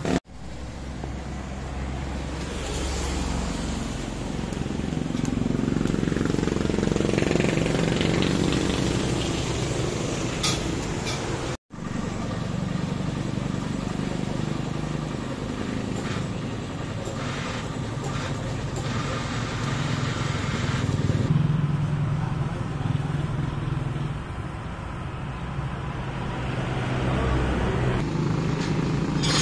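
Motor vehicle engine noise: a continuous low hum that swells and fades.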